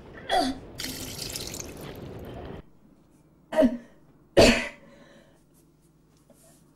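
A person coughing hard, with three short coughs: one just after the start, then two close together a few seconds later, the last the loudest. Under the first cough a rushing hiss runs for about two seconds and stops abruptly.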